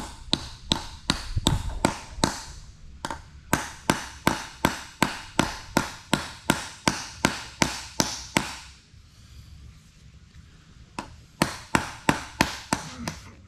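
Hammer blows on metal, about three a second, hammering a tool into a stripped hex-socket screw to get it out. A long run of blows, a pause about nine seconds in, then a second shorter run.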